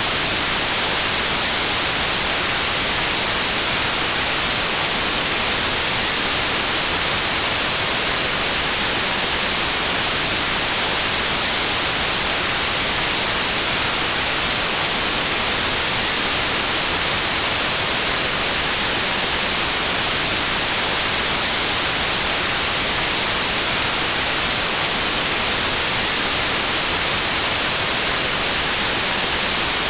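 Steady white noise: an even, unbroken hiss, brightest in the treble, that holds one level throughout.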